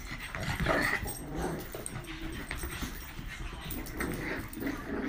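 Pugs play-wrestling, with short irregular dog play noises throughout.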